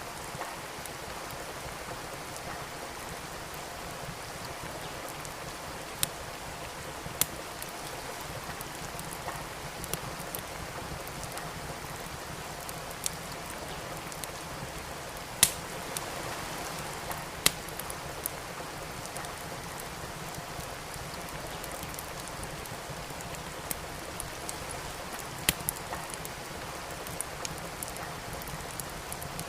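Steady rain falling, with wood crackling and popping in a fireplace: sharp pops a few seconds apart over the hiss of the rain.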